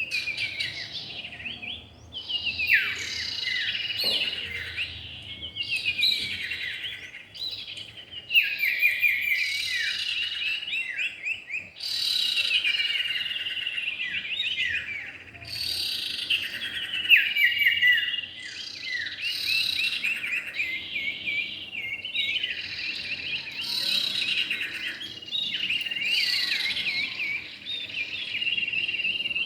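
Common iora (cipow) song: one phrase after another of fast, chattering notes that sweep up and down, with short gaps between phrases.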